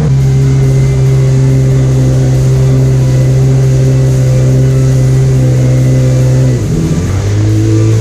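Jet ski engine running steadily under way, its pitch dropping to a lower, slightly wavering note about six and a half seconds in as the engine slows.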